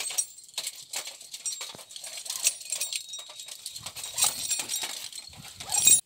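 Close, irregular rustling and scraping with scattered clicks and a few dull thumps, from movement and handling right beside the microphone, loudest in a burst at the very end.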